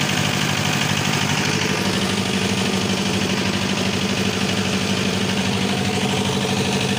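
An engine running steadily at idle, with a constant low hum.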